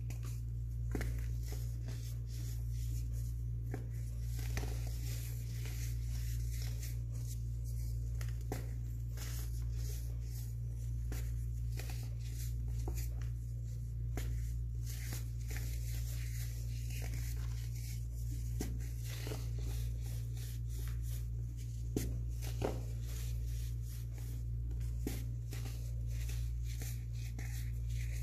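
Chunks of blue-dyed baking soda being crumbled and crushed by hand, making many short, crisp crunches, over a steady low hum.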